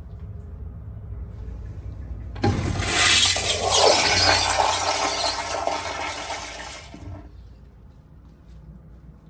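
A restroom flush valve flushing. A sudden loud rush of water starts about two and a half seconds in, runs for about four and a half seconds, then dies away over a low steady hum.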